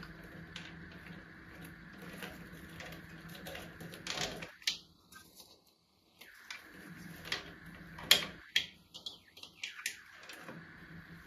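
Irregular light clicks and taps of objects being handled, the sharpest about eight seconds in, over a faint steady hum.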